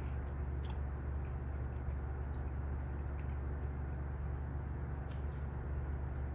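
Steady low hum of background room noise, with a few faint clicks.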